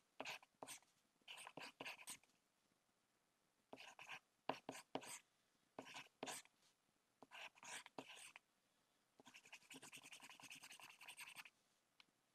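Faint writing sound of a pen scratching on paper: a series of short, separate strokes, then a quick back-and-forth scribble lasting about two seconds near the end.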